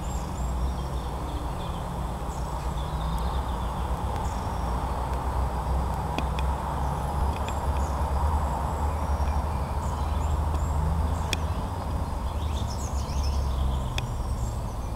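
Birds chirping and singing over a steady low rumble, with a few sharp clicks.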